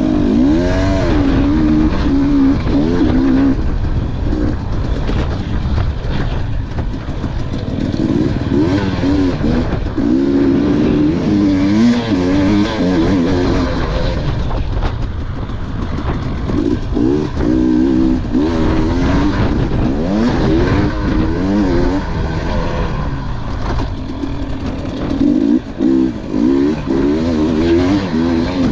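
KTM 300 XC two-stroke dirt bike engine racing around a motocross track, its pitch rising and falling over and over as the throttle is opened and chopped through the corners and jumps, over a steady low rush of wind and track noise.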